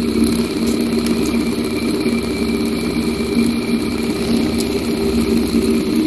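Homemade Bedini motor-generator built from a brushed fan motor, running with a steady, even hum.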